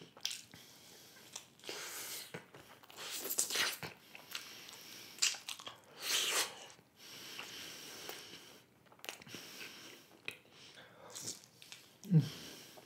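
Close-miked biting and chewing of a soft, cheese-filled pizza slice, the mouth sounds coming in irregular bursts. A brief low hum near the end.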